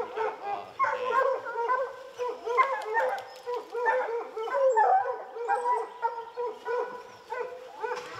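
A pack of bear hounds barking treed at a black bear up a tree, many overlapping barks and bawls without a break: the treed bark that tells the hunters the bear is caught up.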